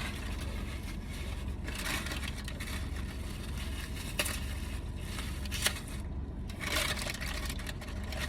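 A plastic food container being handled and opened: rustling scrapes and a few sharp clicks, over a steady low hum.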